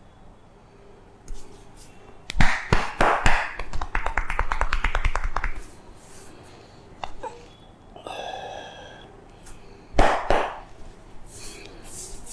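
Hands striking a head in a percussive head massage: a few sharp slaps, then a fast, even run of pats for about two seconds, and another loud slap near the end.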